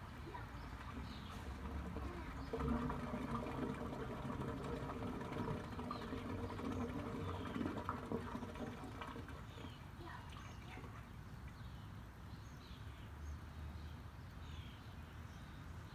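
Outdoor ambience of running, trickling water, heavier in the first half and easing after about ten seconds, with small birds chirping now and then.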